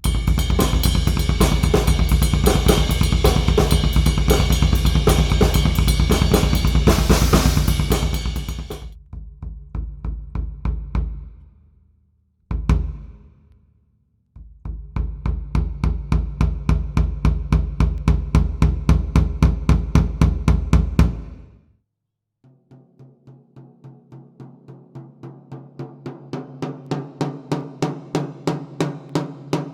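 Sakae Trilogy drum kit (3-ply maple/poplar/maple shells) with Paiste cymbals played as a sound check. First comes a full groove with cymbals and a crash, which rings out. After a single hit comes a fast, even run of deep low strokes. A final run of even strokes on a pitched drum grows steadily louder.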